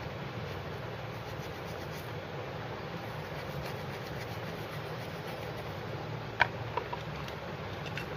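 Small plastic brush scrubbing the inside of a water-damaged phone's back panel around the fingerprint-sensor flex, a steady scratchy rubbing that cleans out water residue, over a constant low hum. A sharp click comes about six and a half seconds in, followed by a few lighter ticks.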